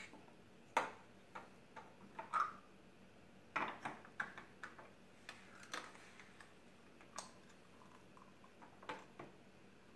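Light, irregular clicks and taps of small plastic toy pieces being picked up and set down on a plastic SpongeBob toy. They come thickly in the first half and thin out toward the end.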